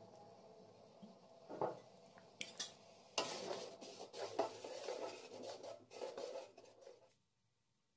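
A spoon stirring soya chunks in gravy in a metal kadhai, scraping and clinking against the pan, preceded by a few light knocks. The stirring starts about three seconds in and stops suddenly about seven seconds in.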